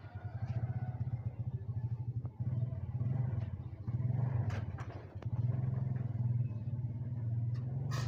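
An engine running steadily and low-pitched with a fast even pulse, with a few light clicks and scrapes of a metal trowel in potting soil.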